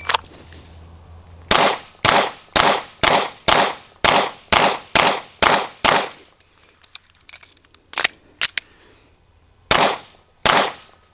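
Staccato P 9mm pistol firing a timed drill: a string of about ten shots roughly half a second apart, a pause, then two more pairs of shots and a last single shot.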